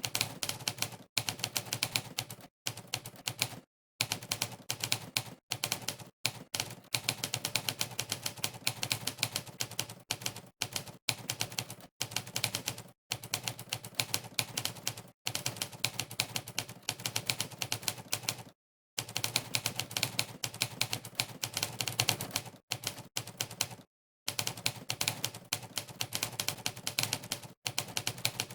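Monkeytype's typewriter sound effect: a rapid run of sampled typewriter key strikes, one for each keypress during fast typing, broken now and then by short pauses of complete silence.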